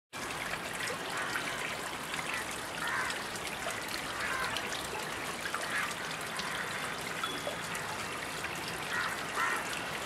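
Small rock garden waterfall: water trickling and splashing down stacked stones into a shallow pool, a steady sound with little bubbling splashes now and then.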